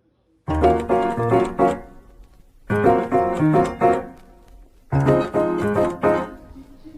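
Background music: a piano plays a repeating riff of short chord phrases, each coming in sharply and fading, about every two seconds. This is the intro of a pop song.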